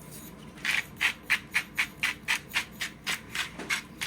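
Salt being dispensed over raw fish from a hand-held container, in quick rhythmic rasping strokes about four a second, starting about half a second in.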